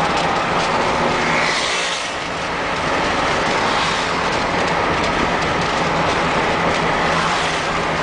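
Car driving, heard from inside the cabin: steady engine hum with tyre and road noise, dipping briefly about two seconds in.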